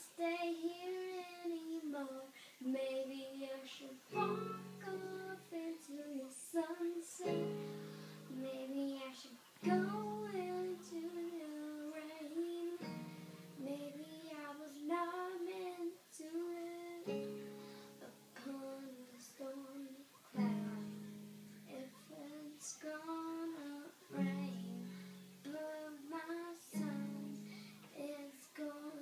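A young girl singing a slow song in phrases while playing held chords on an electronic keyboard.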